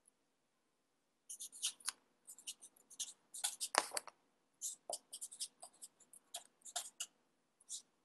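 Writing by hand on paper: a run of short, quick scratching strokes, starting a little over a second in.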